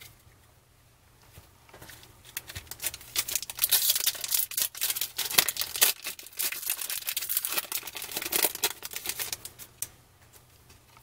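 Foil trading-card pack wrapper being torn open and crinkled by hand. A dense run of crackling and tearing starts about two seconds in and dies away near the end.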